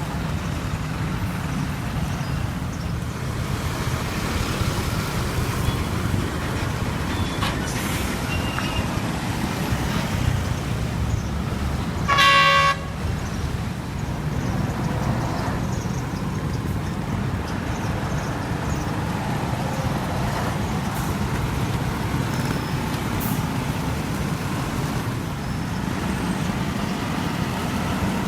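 Street traffic with heavy truck engines running steadily, and one short vehicle horn toot about halfway through.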